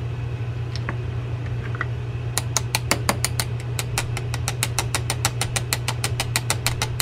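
Screwdriver tapping rapidly against a Daiwa Saltist level-wind reel to vibrate its level-wind pawl loose: a fast, even run of light metallic clicks, about seven or eight a second, starting a couple of seconds in. A steady low hum runs underneath.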